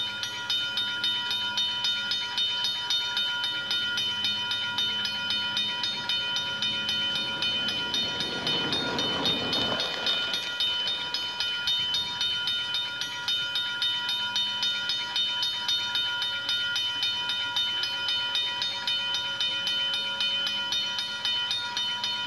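Toy railroad crossing's electronic sound playing a rapidly repeating crossing-bell ding. A rushing noise swells and then stops about ten seconds in, and the sound cuts off suddenly at the end.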